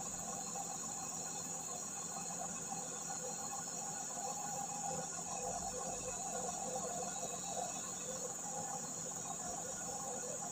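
Forest insects droning steadily in a high-pitched band, with a faint low hum beneath.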